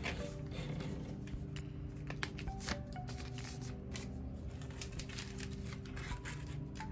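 Paper rustling and creasing in short, irregular handling noises as a packing slip is folded by hand, over soft background music.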